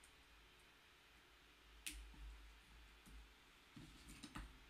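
Faint clicks of a micro-USB cable being plugged into a small ESP8266 NodeMCU board and the board handled on a desk: one sharp click about two seconds in, then a few small clicks near the end.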